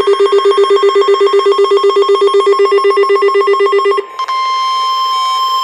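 NOAA Weather Radio weekly test alert on a weather radio. First comes a rapid warbling electronic beep, about a dozen pulses a second. About four seconds in it breaks off briefly and a steady single-pitch warning alarm tone of about 1 kHz starts, with fainter beeps pulsing over it.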